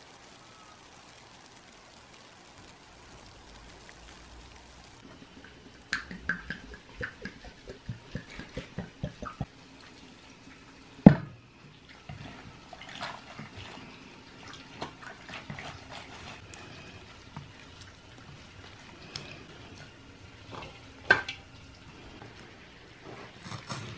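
Fresh greens being washed by hand in a plastic bowl of water: splashing and dripping, with a run of light knocks and one sharp knock about eleven seconds in.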